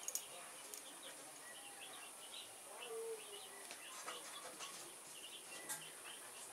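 Birds chirping faintly: scattered short, high calls.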